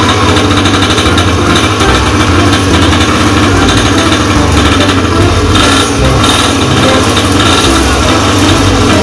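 Mini pocket bike's small engine running steadily.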